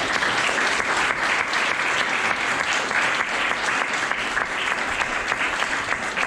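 An audience applauding steadily at the end of a talk: dense, sustained clapping from a roomful of people.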